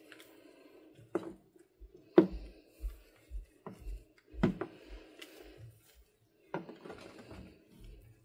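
About five sharp knocks and clatters of hard objects being handled, irregularly spaced, with softer taps and low thuds between them and a low steady hum underneath.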